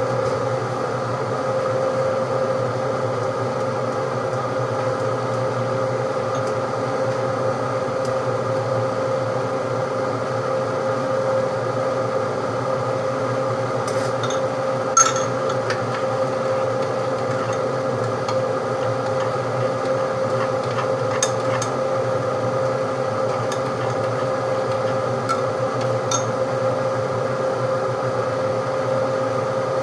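Electric fan running with a steady hum. A few light clicks sound over it.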